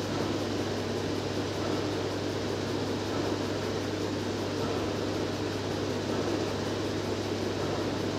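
Steady background hum and whir with an even low drone, unchanging throughout; no distinct tool sounds stand out.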